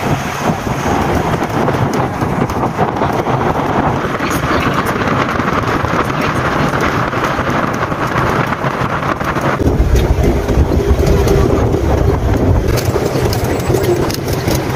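Wind buffeting the microphone of a rider on an open moving vehicle, a dense rushing rumble with road and engine noise beneath. About ten seconds in the low rumble grows heavier.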